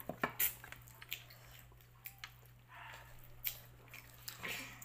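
Close-up chewing and mouth smacking while eating chicken and rice by hand, with several sharp wet clicks scattered through.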